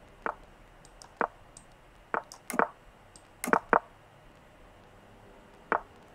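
About seven short, sharp clicks at irregular intervals, some in quick pairs, as moves are played in a fast online blitz chess game.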